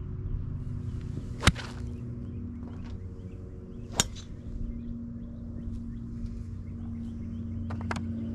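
Golf iron swung and striking a range ball about a second and a half in: a short swish, then a sharp crack, the loudest sound here. Another sharp crack comes about four seconds in, and light clicks come near the end, over a steady low engine hum.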